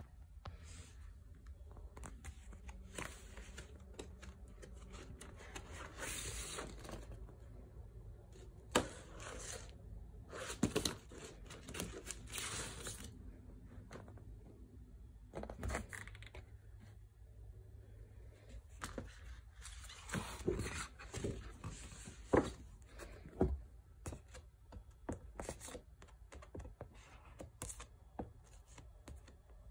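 Paper and card record sleeves rustling and scraping as a vinyl LP is slid out and handled, with scattered light taps and clicks. The longer rustles come about six, eleven to thirteen, and twenty seconds in.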